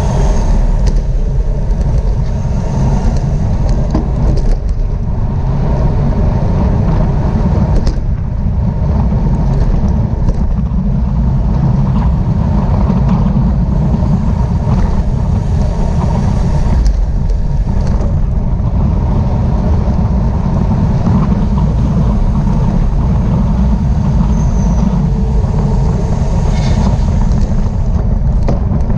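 Loud, steady wind rush over the microphone of a camera riding on a racing bicycle at speed, with tyre and road noise beneath it.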